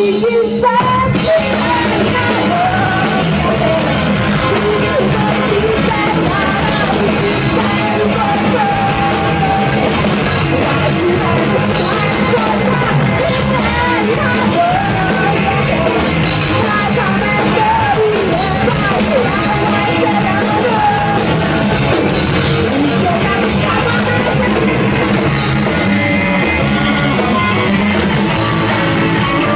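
Live rock band playing loud, with electric guitars and a drum kit, and singing over the band.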